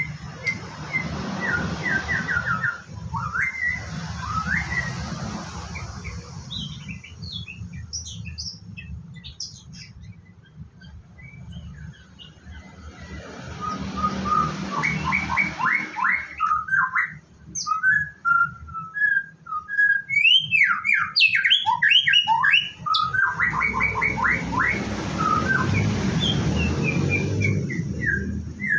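White-rumped shama singing: a varied run of clear whistles, quick rising and falling glides and fast trills of repeated notes, in bouts with short pauses between them. A rushing noise swells and fades underneath.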